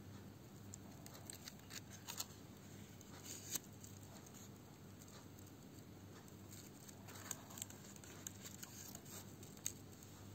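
Near-silent room tone: a faint low hum with scattered small clicks and rustles, and a few sharper ticks about two and three and a half seconds in and again near the end.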